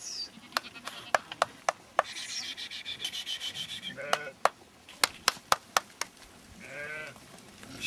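Sheep on pasture bleating now and then, a short wavering bleat at about four seconds and another near the end, among a series of sharp clicks, five of them in quick succession about five seconds in.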